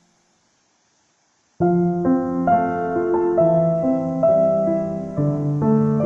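Background piano music: after a second and a half of silence, a new piece starts suddenly, with a melody of single notes over held lower notes.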